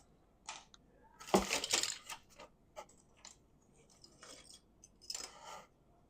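Small tabletop miniatures clicking and clinking against each other as they are taken out of a box and set down, in scattered knocks with the busiest cluster about a second and a half in and another near the end.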